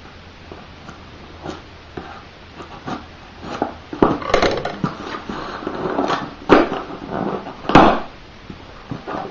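Cardboard shipping box being pulled open by hand, its packing tape tearing and flaps scraping. Irregular rustles and scrapes, with two sharper knocks near the end.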